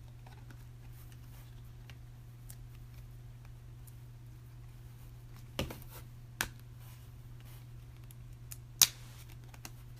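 Trading cards being handled and flipped through by hand: faint sliding and rustling with a few sharp clicks, the loudest one near the end, over a steady low hum.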